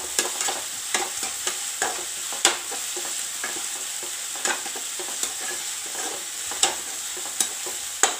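Sliced onions, green chillies and curry leaves sizzling in oil in a nonstick kadai as a slotted steel spatula stirs them. A steady sizzle runs throughout, with irregular scrapes and taps of the spatula on the pan every second or so. The onions are being sautéed until soft.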